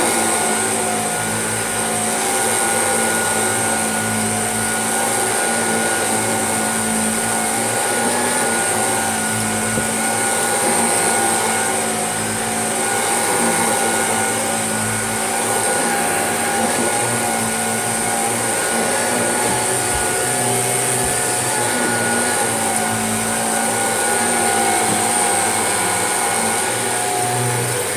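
Shark vacuum cleaner running steadily over a rug, with a high-pitched motor whine; its loudness swells and dips gently every few seconds as it is pushed back and forth.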